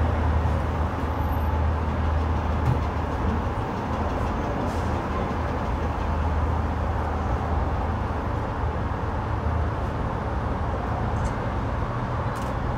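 Roosevelt Island Tramway aerial cabin running along its cables, giving a steady low hum and rumble.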